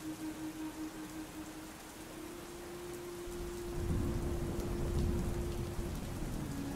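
Steady rain with a low thunder rumble that swells up about three seconds in, under a soft held musical note that steps up in pitch about two seconds in.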